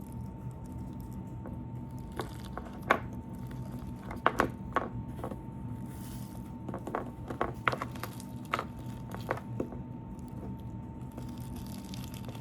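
Slime being squished and kneaded by hand, giving scattered sticky pops and clicks in irregular clusters.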